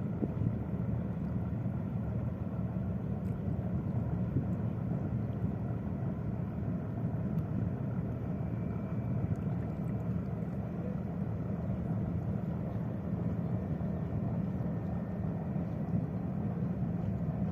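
Steady low rumble of the ship Logos Hope's engines as it leaves port, with no horn blast or other distinct event.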